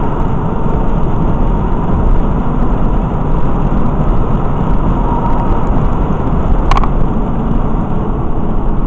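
Steady road and engine noise heard inside the cabin of a moving vehicle, with a single short click about seven seconds in.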